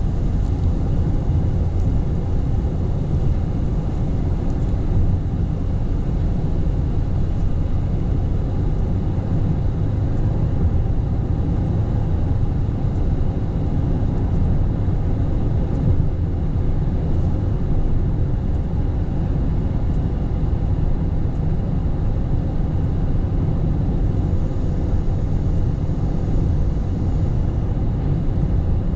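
Car road noise heard from inside the cabin: a steady low rumble of tyres and engine on a wet road, with no change throughout.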